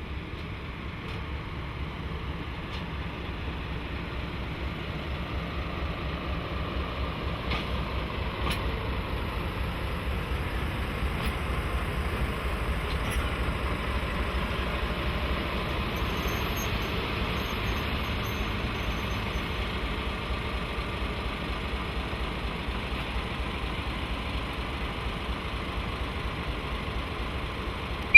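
JNR DE10 diesel-hydraulic locomotive running, its engine throbbing steadily and growing louder over the first half before easing off a little, with a few sharp clicks scattered through it.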